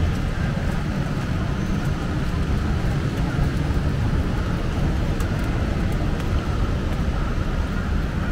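Steady low rumble of traffic on a rainy city street, with faint scattered ticks of raindrops.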